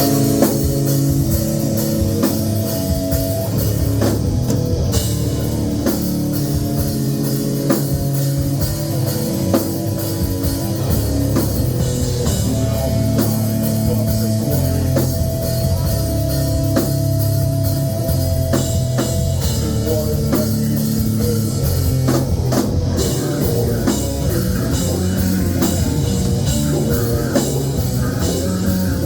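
A rock band playing live and loud: electric guitar holding sustained notes over a drum kit hitting steadily, with heavy low end.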